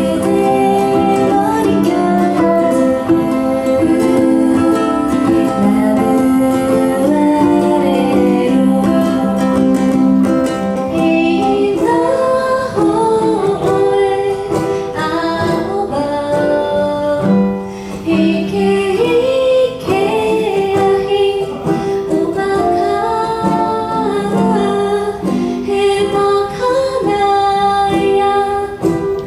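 A song: a plucked string instrument playing with a voice singing a melody over it.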